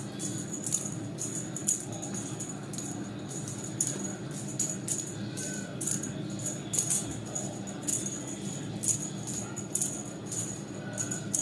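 A small jingle bell rattling in short, irregular shakes, as a cat toy is batted about by playing kittens, over a steady low hum.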